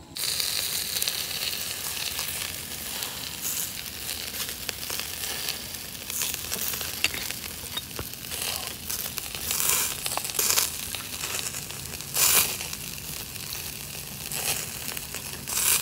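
Skewered chicken neck, gizzard and liver pieces sizzling over glowing charcoal in a steady hiss. Several short, louder surges of sizzling come as ghee is brushed on and drips onto the coals.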